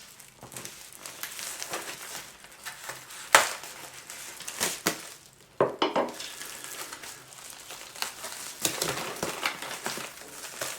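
Wrapping paper crinkling and rustling as a gift is unwrapped by hand, with a few sharp snaps along the way.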